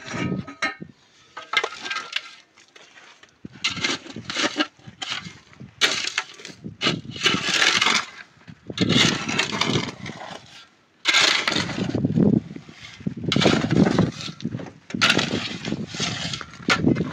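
A steel shovel scraping and pushing across a dry dirt-and-gravel floor, one rough scrape about every second and a half. A few small stony clicks and knocks come first.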